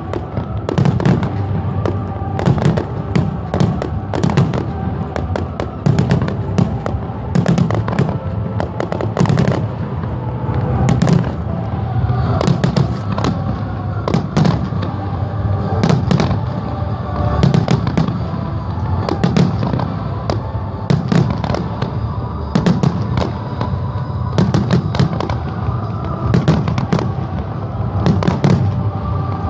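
Fireworks display: a dense, continuous run of sharp bangs and crackles from aerial shells bursting, with music playing underneath.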